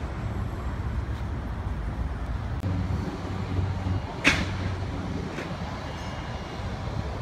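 Steady outdoor city background noise with a low traffic rumble, and one sharp click a little over four seconds in.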